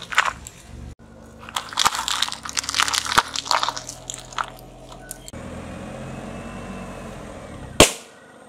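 A car tyre rolls over and crushes small foil-lidded plastic cups in a dense run of crackling crunches. A quieter low rumble of the rolling car follows. Near the end a single sharp, loud bang comes as a balloon bursts under the wheel.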